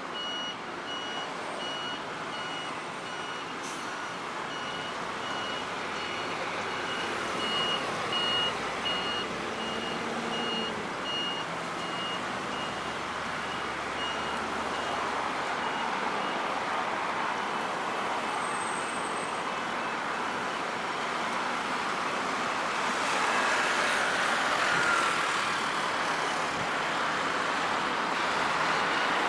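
Steady city road traffic as a line of cars drives past, with a high electronic beep repeating about once a second through roughly the first half. The traffic noise grows louder in the last third.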